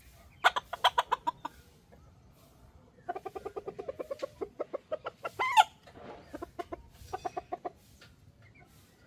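Chickens clucking in quick runs of clucks, three runs in all, with one louder drawn-out squawk about five and a half seconds in.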